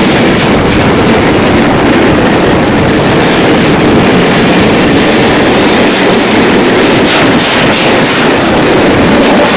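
Freight train of tank wagons rolling past close by: a loud, steady rush of steel wheels on rail, with repeated clacks.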